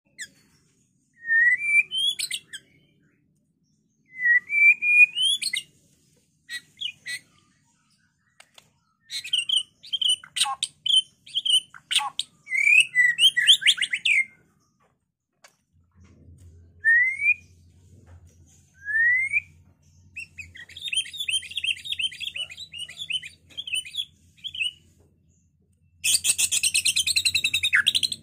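A white-rumped shama sings a varied song in full, combative voice. It gives short rising whistles, sharp clicks and fast chattering trills in separate phrases. Near the end comes a loud, dense, rapid rattling burst.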